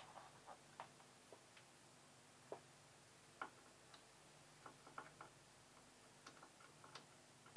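Near silence with a faint low hum and about a dozen faint, short clicks and ticks at irregular intervals.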